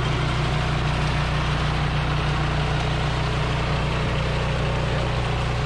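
Mitsubishi engine of an OREC Bull Mower HRC664 tracked flail mower running steadily at working speed while the mower cuts through tall grass.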